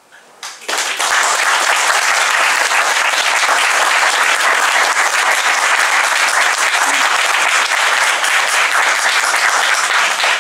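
A small audience applauding. The clapping starts suddenly about half a second in and holds steady.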